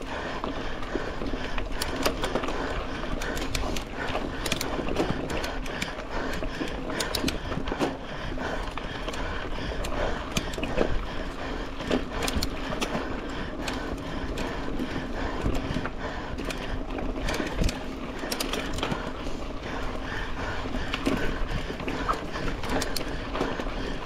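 Mountain bike ridden hard over a rough dirt trail: a steady rattle and clatter of the bike's parts, with frequent sharp clicks and knocks as it goes over bumps.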